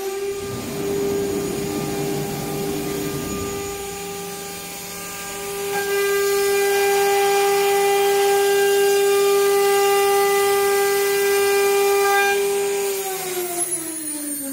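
Electric spindle of an ATC CNC router running at a steady high whine while its bit cuts a circle into plywood, getting louder through the middle of the cut. Near the end the spindle winds down, its pitch falling.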